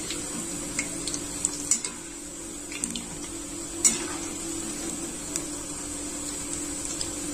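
Batter fritters deep-frying in hot oil in a metal kadhai, with a metal slotted skimmer stirring them and clicking against the pan several times, the loudest knock about four seconds in. A steady low hum runs underneath.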